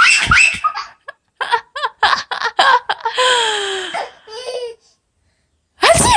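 A baby laughing hard at a woman's sneezes: a run of short giggles, then a long high squealing laugh that falls in pitch, then a pause. A sudden loud sneeze comes near the end.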